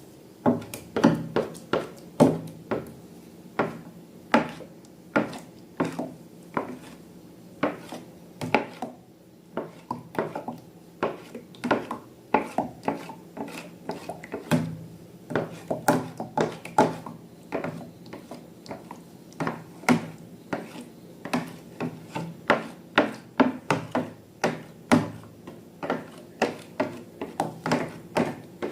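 Slime being squeezed and kneaded by hand, giving an irregular run of sharp, wet clicks and pops, about two or three a second.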